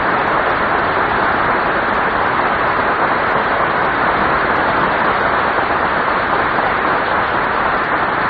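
Studio audience applauding steadily, a dense even clatter of many hands clapping.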